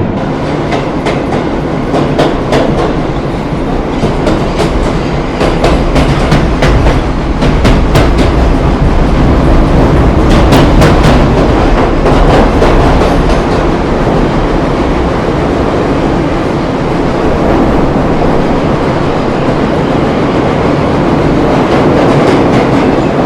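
Train running on rails: a steady, loud rumble with rapid clickety-clack of wheels over rail joints, the clacks thickest in the middle stretch.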